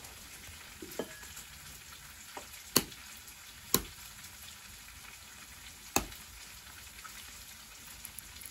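A miniature chicken egg tapped against the rim of a ceramic bowl to crack its shell: a faint knock, then three sharp taps spread over a few seconds, over a steady hiss.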